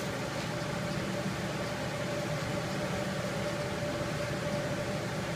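Steady machine hum with a faint constant whine, unchanging throughout; no knocks or handling sounds stand out.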